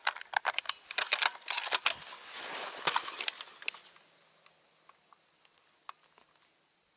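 Rapid clicks and rustling of clothing and gear as a scoped rifle is brought up to the shoulder, dying away after about four seconds into a few faint ticks.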